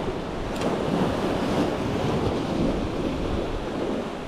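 Sea waves washing steadily, with wind buffeting the microphone.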